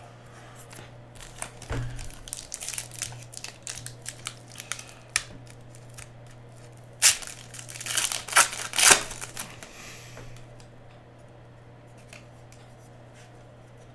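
Foil wrapper of a 2017 Panini Elite Extra Edition trading-card pack crinkling and being torn open, the loudest rips about seven to nine seconds in. Near the end come a few faint ticks as the cards are handled.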